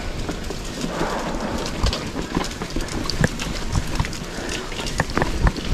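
Mountain bike riding a dirt trail: a steady rustle of tyres on the ground, broken by many irregular clicks and knocks as the bike rattles over the surface.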